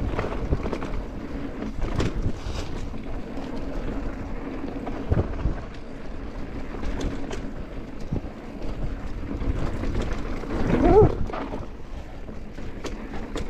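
Mountain bike riding over a rough dirt trail: wind on the microphone and tyre rumble, with frequent knocks and rattles from the bike over bumps. A brief pitched sound rises and falls near the end.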